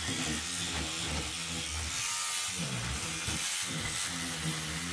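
Small battery-powered scrubbing brush buzzing as it scrubs around the base of a faucet on a composite sink. Its hum dips in pitch and cuts out briefly a little past halfway, then picks up again.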